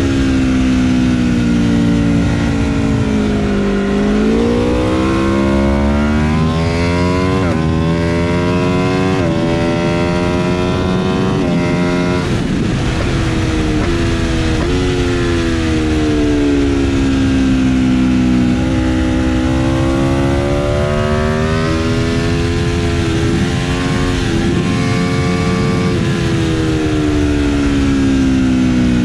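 Aprilia RSV4 RF's V4 engine at speed on track, heard onboard over wind rush. The revs fall under braking, then climb hard with a sudden pitch drop at each upshift, three times in quick succession, then fall and rise again through the next corners, with short blips on the way down.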